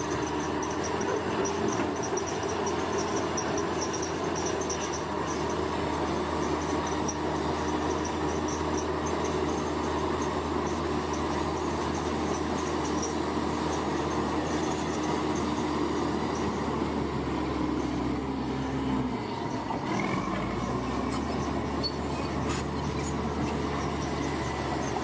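Bulldozer's diesel engine running steadily under load. About three-quarters of the way through, the engine note drops briefly and then picks up again.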